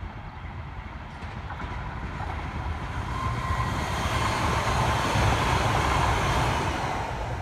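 Metro Gold Line light rail train passing close by: wheels running on the rails with a steady whine, building as the train approaches and loudest as the cars go past.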